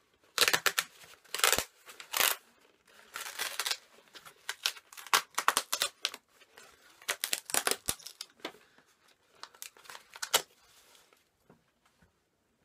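A parcel being opened by hand: packaging tearing and crinkling in irregular bursts.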